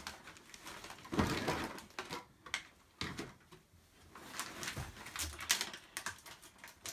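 Wrapping paper crinkling, rustling and tearing in irregular crackly bursts as a present is unwrapped, loudest about a second in.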